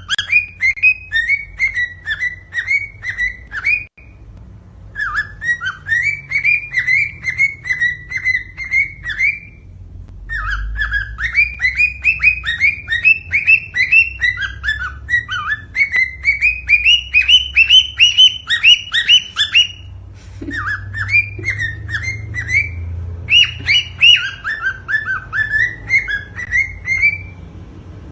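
Cockatiel singing: phrases of quick, repeated whistled chirps with short pauses between them, one phrase climbing steadily in pitch midway through.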